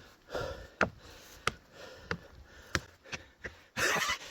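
Footsteps of a man climbing steps, sharp steps about every half to two-thirds of a second, with heavy breathing as he climbs; a louder breath out near the end.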